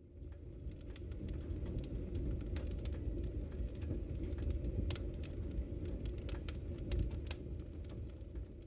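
Crackling fire: a steady low rumble with many irregular sharp pops and crackles.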